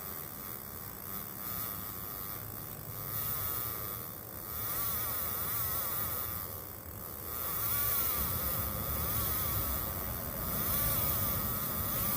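Insects buzzing: a wavering buzz that slides up and down in pitch, coming and going and louder from about halfway in, over a high steady insect drone.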